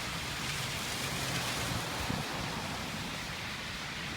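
Steady hiss of water on a flooded road, with a low rumble in the first couple of seconds.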